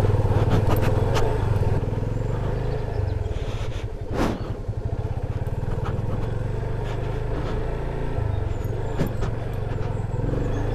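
Yamaha FZ25's single-cylinder engine running at low speed on a rough, rocky dirt trail, with scattered knocks and rattles from the bike, and one sharp knock about four seconds in.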